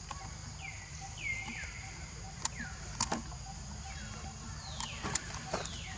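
Repeated short high animal chirps, each falling in pitch, with two longer falling calls near the end. A steady high insect drone runs underneath, and two sharp clicks come near the middle.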